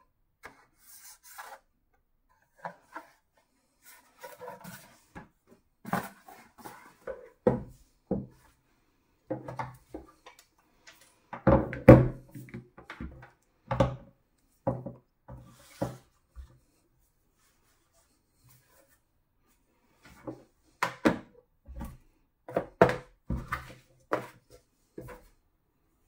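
Hands handling an Anker 675 USB-C docking station and laying its power adapter and cables on it over a wooden desk: irregular knocks, clunks and rubbing. The loudest clunks come about 12 seconds in, and there is a few-second lull a little after the middle.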